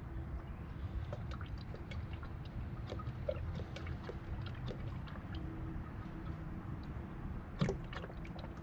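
Motor oil pouring steadily from a plastic jug into the engine's oil fill, with scattered small ticks and one sharper knock near the end.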